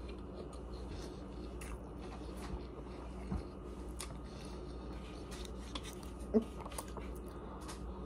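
A person chewing a mouthful of food, with small wet mouth clicks, over a steady low hum. About six and a half seconds in comes one short, sharp knock or clink.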